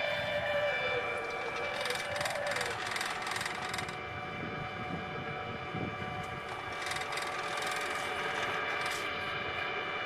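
Wood gasifier's draft blower running with a steady whine of several pitches, pushing gas out through the flare pipe with a rushing hiss. The whine dips slightly in pitch in the first couple of seconds.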